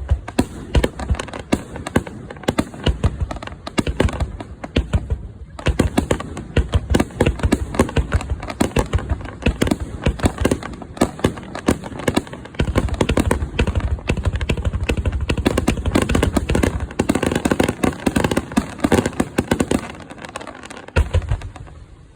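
Aerial fireworks display: shells bursting in rapid succession with crackling. Past the middle they thicken into a dense, louder barrage, and a last few loud bangs close it before the sound dies away.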